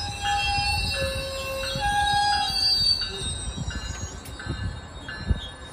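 GO Transit bilevel passenger coaches rolling past over steel rails. The wheels squeal in high steady tones that come and go and change pitch in the first few seconds, over a rumble with uneven knocks from the wheels. One sharp knock comes about five seconds in.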